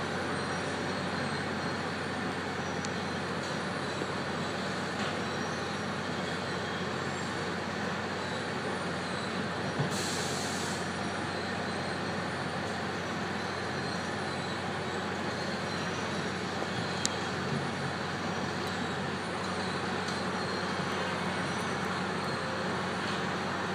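Heavy road-construction machinery running steadily, with a dense engine rumble. About ten seconds in there is a short hiss of air, and a few light clicks come later.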